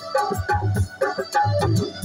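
Instrumental break in live folk music: a hand drum beats a steady rhythm under a short keyboard melody, with no singing.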